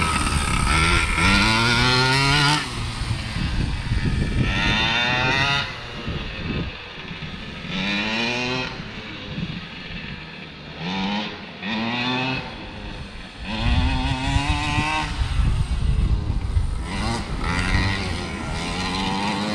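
Primal RC Raminator V2 RC monster truck's small gas engine revving in short throttle bursts, about six of them, each rising in pitch and then falling back toward idle. The engine is still being broken in.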